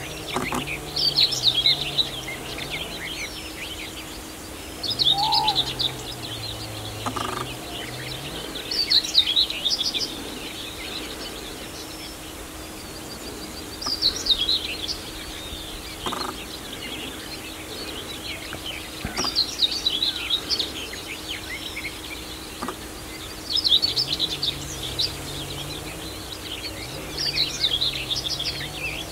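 A songbird singing loud, quick, high phrases of two to three seconds each, repeated about every five seconds.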